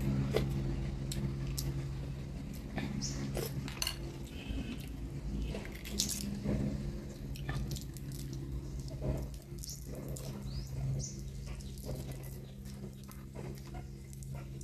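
Close-up eating sounds: small irregular clicks and crackles of a boiled duck egg's shell being picked off by hand, with mouth sounds and light spoon taps, over a steady low hum.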